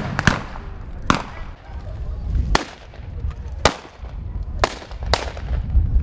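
Reenactors' rifles firing blanks in a scattered volley: about six sharp cracks at irregular intervals, each with a short echoing tail.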